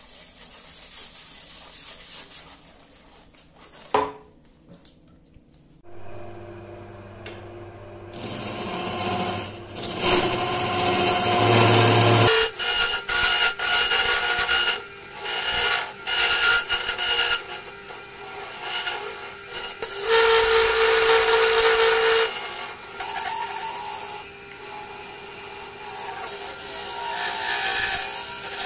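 Wood lathe spinning a segmented wooden bowl while a gouge cuts the inside, in loud cutting passes that come and go over the motor's hum. Near the start, abrasive is held against the spinning outside of the bowl, and a sharp knock comes about four seconds in.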